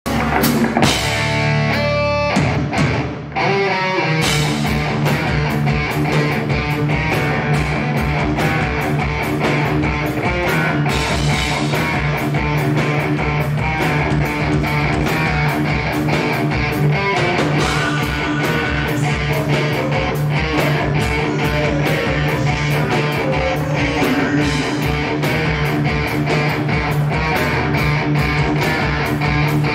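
Live metal band playing: electric guitars, bass guitar and drum kit. After a brief opening with held guitar notes and a short drop in level, the full band comes in about four seconds in with a steady drum beat under sustained guitar chords.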